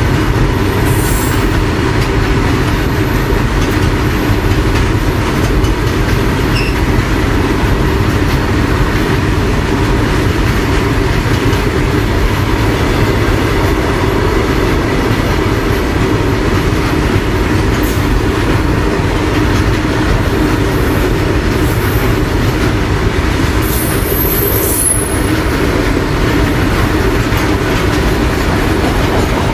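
Freight train wagons rolling past, a loud, steady rumble of wheels on the rails, with brief high-pitched wheel squeals about a second in and again near the end.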